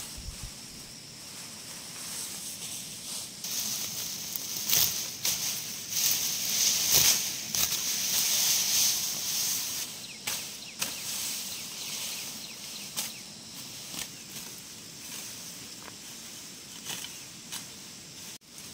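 Tall grass rustling as it is gathered by hand and cut with a sickle, with sharp snaps of cut stems every second or two, the busiest stretch about a third of the way in.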